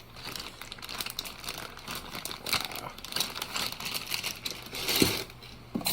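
Plastic packaging crinkling and rustling as hand tools are unpacked, with many small clicks and a sharper knock about five seconds in.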